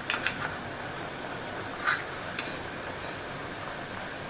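Steady sizzling hiss from a pan of sauce heating on a gas burner turned up full. A few light knocks and a short scrape sound near the start and about two seconds in, as cornstarch is mixed in a bowl.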